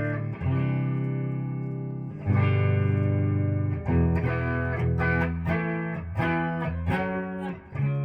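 1986 Hamer Chaparral electric guitar on its bridge pickup, playing a sound-test passage: chords struck and left to ring three times, then quicker chord changes in the second half.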